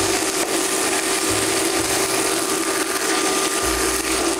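Cutlets frying in a pan of tomato sauce, a steady loud sizzle, over the steady hum of a kitchen extractor hood fan.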